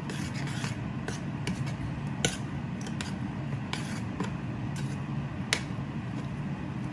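Metal spoon scraping and clinking against a cooking pot as a curry is stirred: scattered sharp clinks, two louder ones about two seconds and five and a half seconds in, over a steady low hum.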